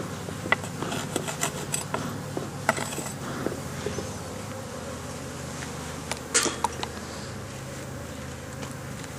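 Honeybees buzzing steadily around an opened hive, with scattered light clicks and knocks and one louder short rustle about six seconds in.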